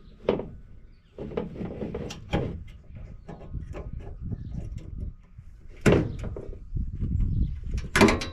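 Clatter of a microwave oven being taken apart by hand: scattered clicks, scrapes and rattles of its metal and plastic parts, with a few sharp clunks, the loudest about six seconds in and just before the end.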